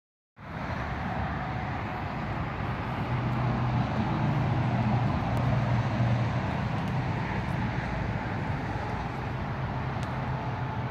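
A vehicle engine running steadily with a low, even hum.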